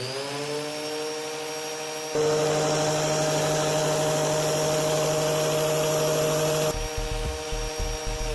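Black and Decker angle grinder with a sanding disc running with a steady high whine. About two seconds in, a loud grinding hiss joins as the disc is pressed against something. The grinding stops a little before the end, while the motor keeps whining under a low thumping.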